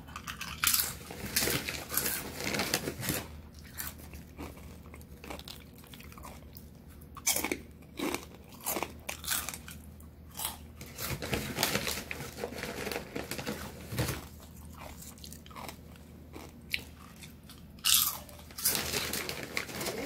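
A person biting into and chewing crunchy food, with irregular sharp crunches and quieter chewing between them.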